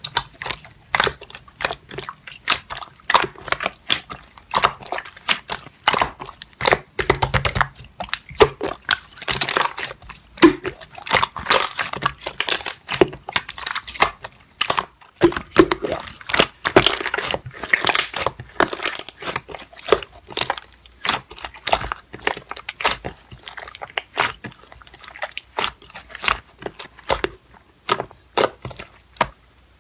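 Slime being squeezed, pressed and stretched by hand, with dense irregular crackling and popping.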